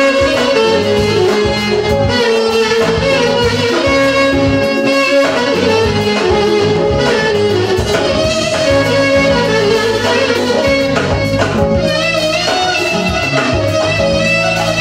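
Live band music: a clarinet plays an ornamented, sliding melody over keyboard and drum kit accompaniment.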